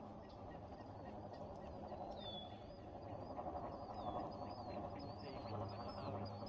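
Duck call blown in a raspy run of quacks that swells about halfway through, with repeated high chirping and a single falling whistle-like note in the background.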